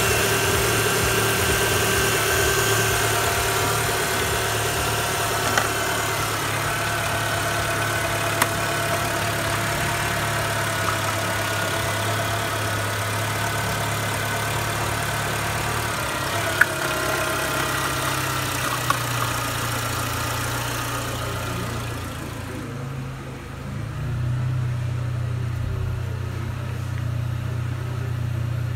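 Renault Megane's 1.4-litre K4J 16-valve four-cylinder petrol engine idling steadily, with a few light clicks. The seller notes that the idle speed wanders. From about 22 seconds in it is heard at the exhaust, lower and with less hiss.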